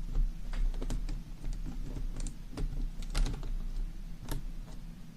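Laptop LCD panel being fitted back into its mounting bracket in the lid: a scattered series of light plastic and metal clicks and taps, about a dozen, unevenly spaced, with a few sharper ones.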